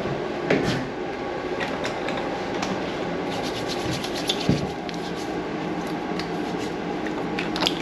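Hands rubbing together, working in hand sanitizer, with crisp rustling and clicks. The dispenser pump is pressed about half a second in. Under it runs a steady background hum.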